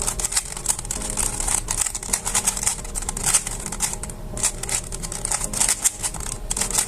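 Plastic Rubik's Cube layers being twisted in quick succession: a continuous run of rapid, irregular clicks and clacks.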